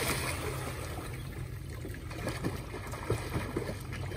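Swimming-pool water sloshing and churning as two children swim through it, with small splashes from their kicking. The wash of their jump-in splash dies away in the first half second.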